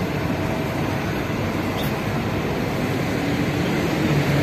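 Steady street traffic noise: vehicles running on the road close by.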